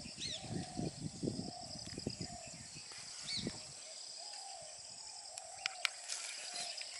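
Outdoor wildlife ambience: a steady high insect drone, with a bird repeating a short low call about twice a second and a few higher chirps. A low rumbling noise fades out about halfway through.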